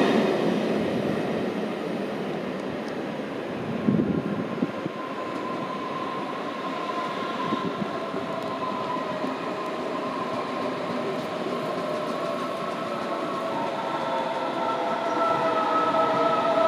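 Electric trains at a station platform: rail noise fades away over the first couple of seconds, with a knock about four seconds in. Steady whining tones then come in and grow louder toward the end.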